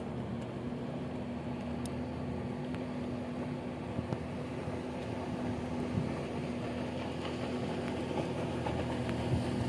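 Jet ski engine running steadily as it tows a wakeboarder, a constant drone that grows slightly louder as the craft comes closer.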